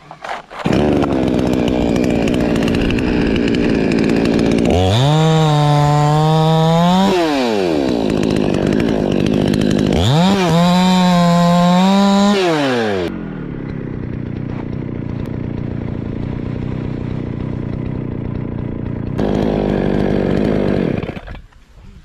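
Petrol chainsaw cutting through a coconut palm trunk. The engine rises to a high whine twice, then runs lower and steadier for several seconds, picks up briefly again and falls away near the end.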